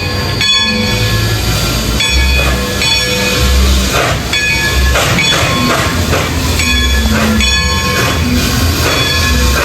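Steam locomotive No. 192, Klondike Katie, chugging as it pulls out, heard under background music with changing notes and a bass line.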